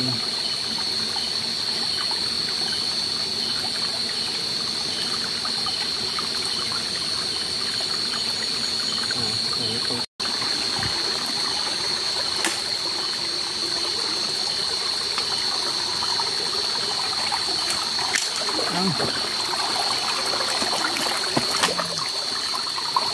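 Shallow forest stream trickling over rocks, with a steady high-pitched drone over it and a few small clicks and splashes in the second half. The sound cuts out for an instant about ten seconds in.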